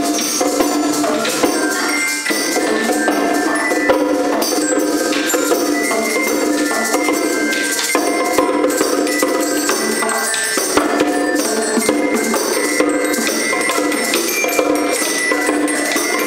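Music played on classroom percussion: a glockenspiel struck with mallets over small hand drums and a shaker, with dense, continuous strikes throughout.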